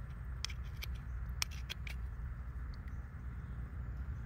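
A steel rebar rod clicking and scraping against an oyster shell as the oyster is pried open and its meat loosened: about five sharp clicks in the first two seconds, over a low steady rumble.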